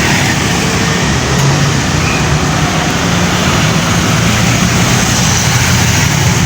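Road traffic close by, led by a large diesel engine running steadily, over tyre and road noise.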